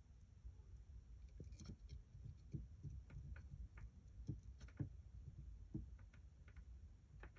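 Near silence: low room hum with a dozen or so faint, scattered small clicks and taps from handling the parts while soldering.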